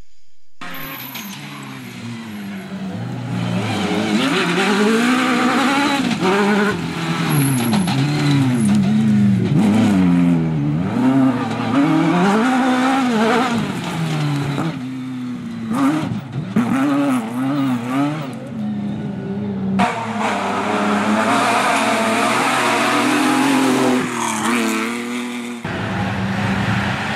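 Rally car engines revving hard, the note climbing and dropping over and over through gear changes and lifts as the cars are driven flat out on a dirt stage. Several cars are heard one after another, each cut off abruptly by the next.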